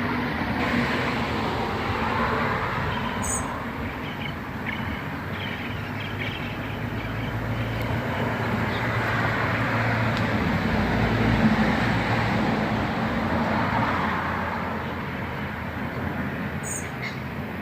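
Road traffic: a steady rumble of passing vehicles, one swelling past and fading away in the middle. Two brief high chirps sound over it, one early and one near the end.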